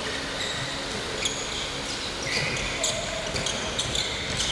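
Handball players' sneakers squeaking on a wooden sports-hall floor, with a handball bouncing and footsteps thudding during a 4-against-4 drill. The squeaks come as several short high chirps scattered through the play.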